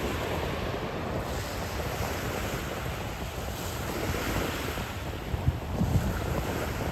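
Wind buffeting the microphone over the wash of small waves on the shore, with stronger low gusts near the end.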